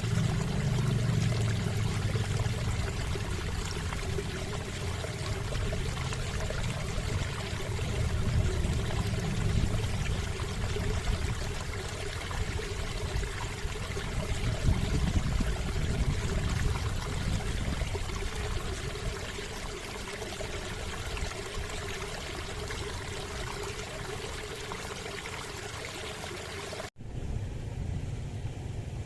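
River water flowing, a steady rushing noise with a heavy low rumble. Near the end it cuts off abruptly and gives way to a duller, lower rumble.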